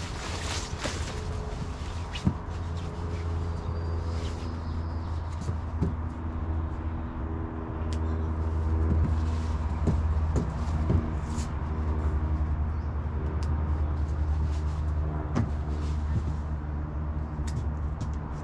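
A small motor running with a steady low hum, with a few short clicks and rustles over it.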